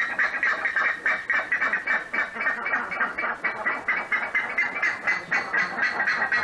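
Buff-necked ibis (curicaca) calling: a rapid, even run of loud honking notes, about five or six a second.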